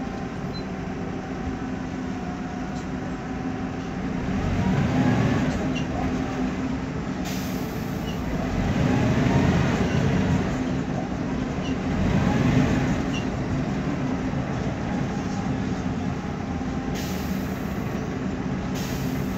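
Inside a MAN Lion's Classic city bus under way: the engine's steady drone with a whine from the drivetrain that rises and falls in pitch as the bus speeds up and slows, which the uploader calls a noisy differential. Brief hisses of air come about a third of the way in and near the end.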